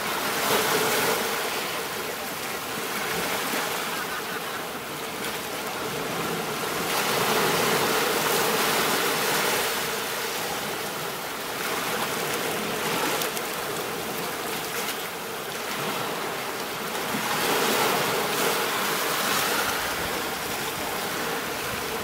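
Ocean surf washing up a shallow beach: a continuous wash of breaking waves that swells and eases every few seconds.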